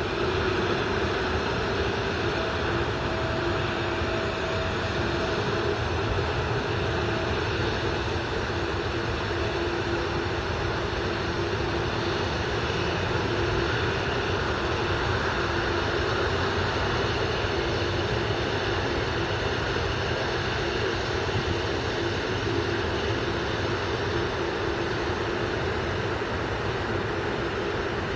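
Turbofan engines of taxiing jet airliners, including a Qatar Airways Airbus A330, running at taxi power: a steady whine over a rumble, with a second higher tone for a few seconds near the start.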